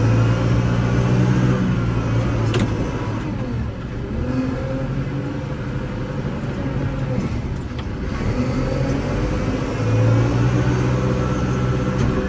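Kubota L6060 compact tractor's diesel engine running while plowing snow, its pitch rising and falling as the load changes, with a few short sharp clicks.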